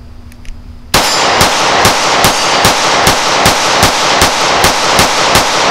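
Taurus G3c compact 9mm pistol firing Buffalo Bore 124-grain +P+ jacketed hollow points: about a dozen shots in steady rapid fire, roughly two and a half a second, starting about a second in, each shot ringing on into the next.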